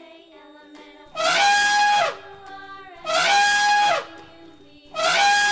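Elephant trumpeting three times, each call about a second long and about two seconds apart, sweeping up at the start and then holding one steady pitch.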